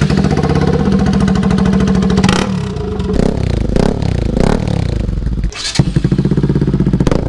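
Bajaj Pulsar RS200's single-cylinder engine running loud through aftermarket slip-on exhausts being tried on. A steady high rev for about two and a half seconds, then several throttle blips rising and falling, a short break about five and a half seconds in, and steady revving again.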